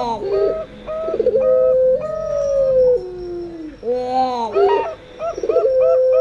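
A zebra dove (perkutut) and a puter pelung dove (a domestic ringneck dove) cooing together. The rapid hooked coos are heard against a long, drawn-out coo that falls in pitch, with the pattern repeating about every four seconds.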